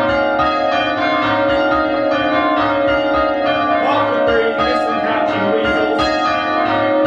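A ring of five church bells in change ringing, struck one after another in a steady, even rhythm.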